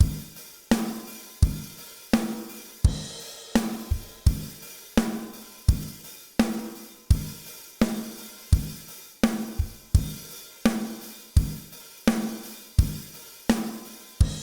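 Recorded drum kit playing a steady beat of kick, snare and hi-hats, with a strong hit about every three-quarters of a second. It is being played back through the Kazrog Avalon 747SP compressor plugin, which has been set to hit the compressor about 10 dB hotter.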